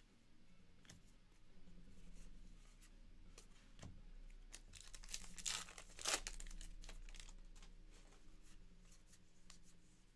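Paper-and-foil wrapper of a 2023 Topps Heritage High Number baseball card pack being torn open and crinkled, loudest a little past halfway with a sharp rip, amid light rustling of cards being handled.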